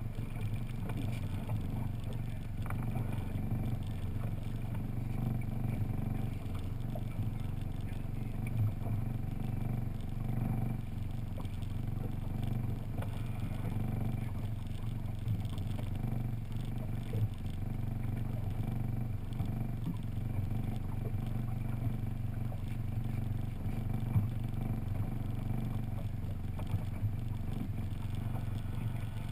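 Outboard motor of a 20-foot skiff running steadily at low speed, with a few sharp knocks.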